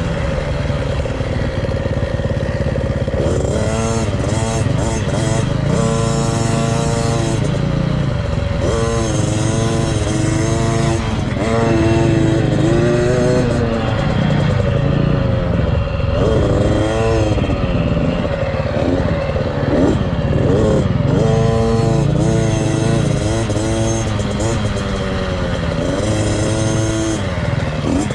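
KTM 50 SX mini dirt bike's small two-stroke engine revving up and down while riding, its pitch climbing and dropping every few seconds with the throttle, over wind rush on the microphone.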